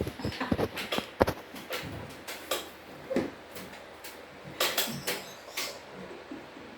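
Handling noises: a run of short clicks, taps and rustles, thickest in the first second and again about four and a half to five and a half seconds in.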